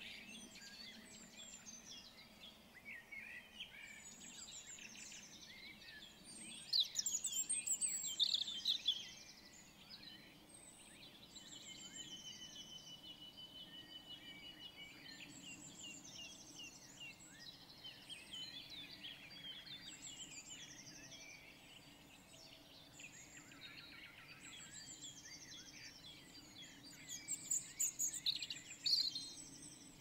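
Several birds singing and calling at once, a dense mix of chirps and short song phrases, with a louder burst of song about seven seconds in and again near the end. Around twelve seconds in, one long even high-pitched trill is held for a few seconds. A faint steady low hum runs underneath.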